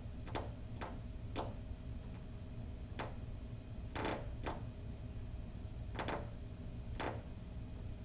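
Male American goldfinch pecking and striking at a window pane: irregular sharp taps on the glass, roughly one a second, some in quick pairs, as the bird attacks what is probably its own reflection.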